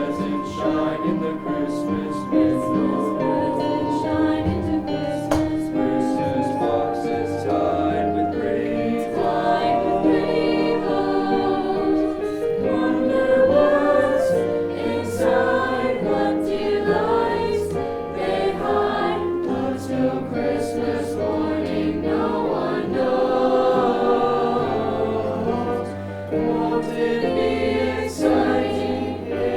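High school choir singing a choral piece in several parts over a low bass line, with notes held and sustained.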